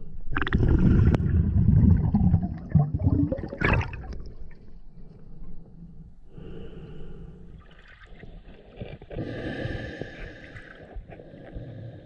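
Water sloshing and gurgling close to the microphone, loudest and rumbling for the first few seconds, then quieter and patchier.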